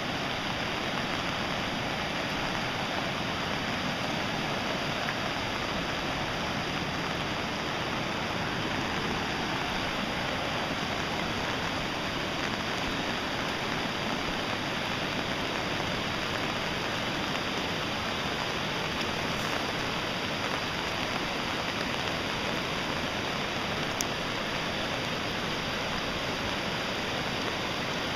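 Steady rushing of water, unbroken and even in level.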